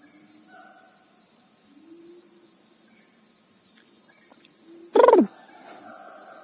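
Steady high-pitched drone of forest insects, with faint held calls further off. About five seconds in, one short, loud call drops steeply in pitch.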